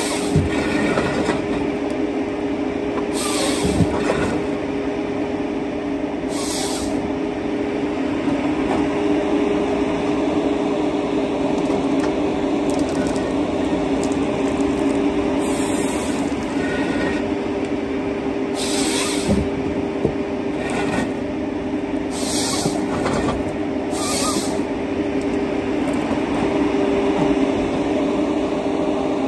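John Deere 953MH tracked harvester's diesel engine running steadily under hydraulic load while its Waratah 622B head grips, feeds and delimbs conifer stems. The drone carries a steady tone, broken several times by short high-pitched hissing bursts and a few sharp knocks.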